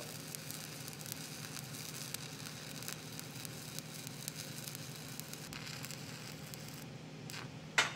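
Stick (SMAW) welding arc crackling and sizzling steadily as a 7018 electrode runs a weave cap pass on steel plate. The crackle thins out after about five and a half seconds, and a single sharp knock sounds near the end.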